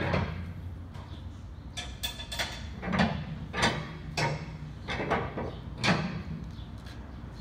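Metal clanks and clicks from a trailer tarp winch being worked with a steel winch bar to release the tarp's tension, a sharp knock about every half second to second.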